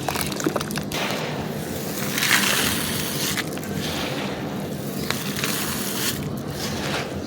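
Dry crumbly material being crushed and crumbled: continuous crackling and grinding, with scattered sharp clicks and a louder surge about two seconds in.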